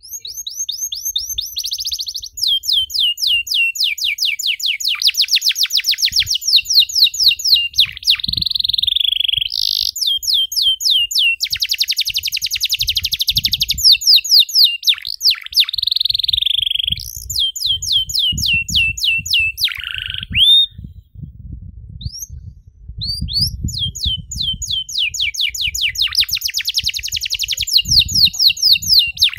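Domestic canary singing a long, continuous song: fast trills of rapidly repeated notes, rattling rolls and short whistled tones, with a brief pause about two-thirds of the way through. A faint low rumble runs underneath.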